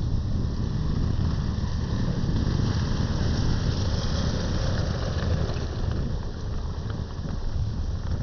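Wind buffeting the microphone in an uneven low rumble, over a steady hiss of sea surf.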